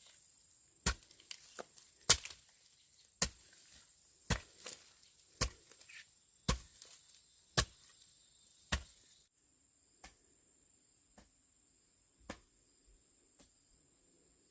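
Regular sharp chopping strikes, about one a second. About nine seconds in they give way to fainter, sparser knocks.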